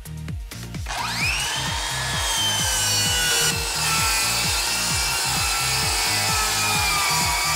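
Makita DHS900/DHS901 18V x2 brushless cordless circular saw spinning up with a sharply rising whine about a second in, then cutting through a wooden board, its pitch sagging slightly as it works through the cut. Electronic music with a steady beat runs underneath.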